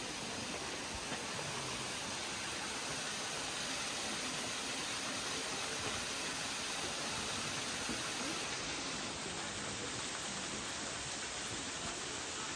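Steady rushing of a mountain stream, an even hiss with no breaks.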